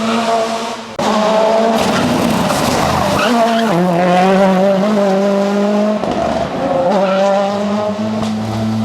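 Ford Fiesta RS WRC rally car's turbocharged four-cylinder engine running at high revs, with a sudden break about a second in and a drop in pitch a few seconds later.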